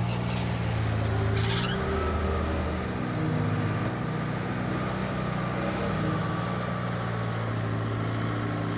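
Tour coach engine running as the coach drives on a dirt track: a steady low drone that shifts slightly in pitch.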